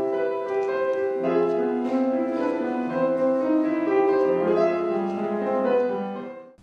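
Classical-style piano music, sustained notes and chords, fading out near the end.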